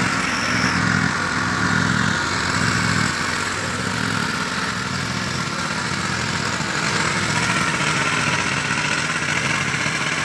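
Small petrol engines running steadily at a water-well drilling rig: the engine-driven water pump that feeds the drilling water and the engine on top of the drill rig.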